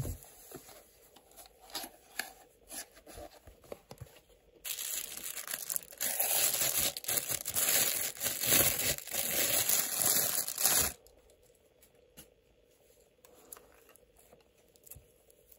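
Packaging rustling and crinkling as a wristwatch is unpacked from its box by gloved hands: scattered soft rustles and clicks, then about six seconds of loud, continuous crinkling from about four and a half seconds in, then only faint handling clicks.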